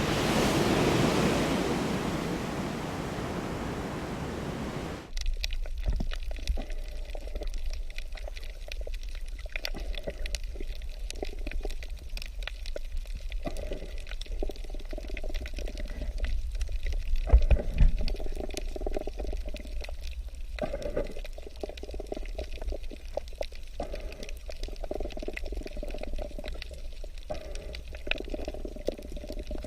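Water rushing in a steady even wash, like waves, that cuts off abruptly about five seconds in. It is followed by water trickling and gurgling, with many small splashes, like a shallow stream running over stones.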